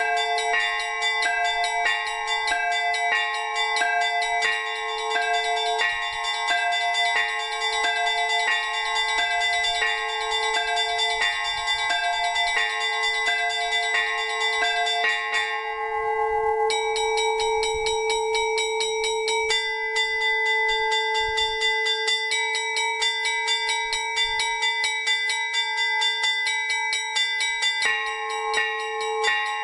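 Orthodox monastery bells rung together: rapid, interlocking strokes of the small high bells over a lower bell that rings on steadily. About halfway through, the small bells drop out for a moment, then come back in a changed pattern.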